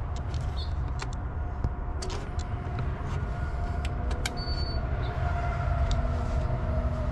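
Electric trolling motor running, a faint whine that rises slowly in pitch over a steady low rumble of wind on the microphone, with a few light clicks and a brief high beep about four seconds in.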